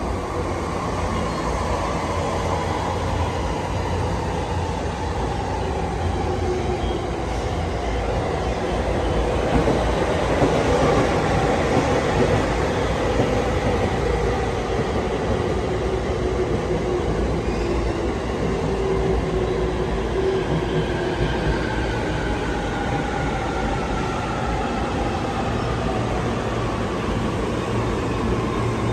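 Electric commuter trains in a station: wheels and running gear rumble past, loudest about a third of the way through, while several whining motor tones slowly fall in pitch as a train slows into the platform.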